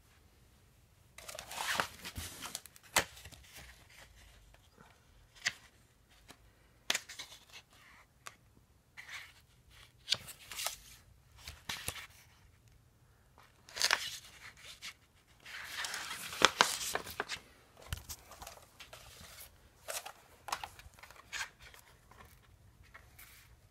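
Clear acetate animation cels and their paper backgrounds being handled and turned over: the plastic sheets crinkle and rustle on and off, with a few sharp clicks, starting about a second in.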